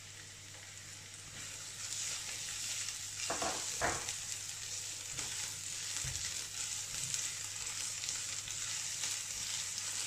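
Chopped garlic and onion sizzling in hot oil in a stainless steel pan. The sizzle gets louder about two seconds in, with a couple of short knocks a little later as the pan is stirred.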